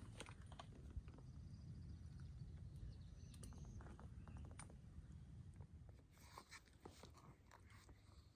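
Near silence: a faint low rumble with a few scattered soft clicks.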